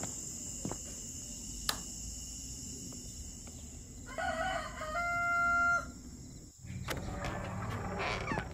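A rooster crowing once, about four seconds in: a call of under two seconds that ends on a held note and cuts off.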